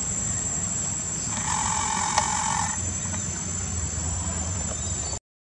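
Outdoor ambience: a steady high-pitched insect buzz over a low rumble, with a brief hum about a second and a half in and a single click. It all cuts off suddenly near the end.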